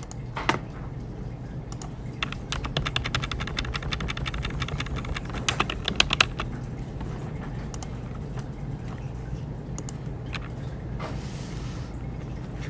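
Typing on a computer keyboard: a fast run of key clicks in the first half, thinning out to scattered keystrokes later, over a steady low hum.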